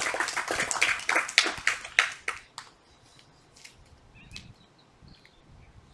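A group of children clapping, which dies away about two and a half seconds in. After it come a few faint bird chirps.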